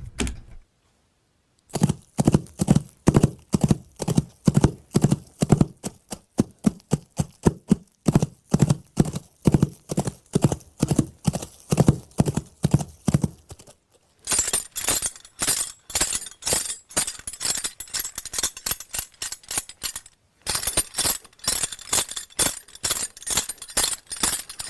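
Hoofbeats clip-clopping at a steady walking rhythm: even, hollow knocks, turning brighter and crisper about halfway through, with a short pause near the end.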